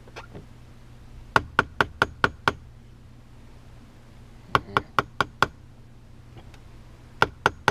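Hammer tapping around a boat's steering wheel in three quick runs of light knocks, about five a second, to work the wheel loose from the steering shaft where it is stuck at the locking pin.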